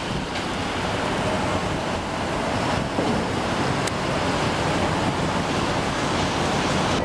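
Steady city street traffic noise, with wind rumbling on the microphone.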